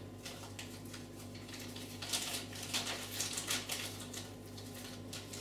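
Clear plastic bag crinkling and rustling as a chainsaw chain is handled inside it, with light clinks of the metal chain, busiest in the middle. A steady low hum runs underneath.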